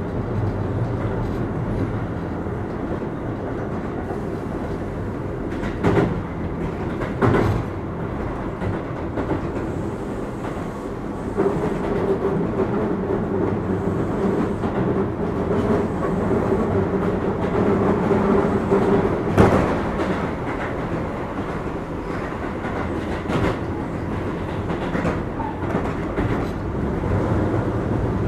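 Keio 8000 series electric train with Hitachi SiC inverters running at speed, heard from inside the car: a steady rumble of wheels on rail with a few sharp rail-joint clacks. A steady motor tone comes up for several seconds in the middle.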